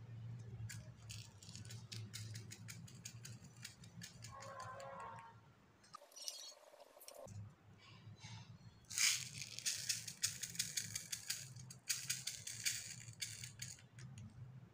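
Sequins and tiny seed beads being tipped from a small plastic cup into a glass dish: a patter of many small clicks and rattles. It is light at first and grows loud and dense about halfway through, as the beads pour out.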